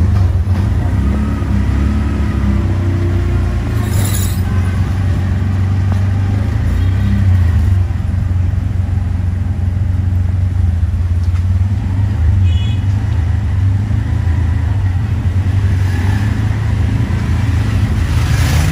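Three-wheeled auto rickshaw's engine running with a steady low drone, heard from inside the open passenger cabin while driving on a wet street. There is a short hiss about four seconds in.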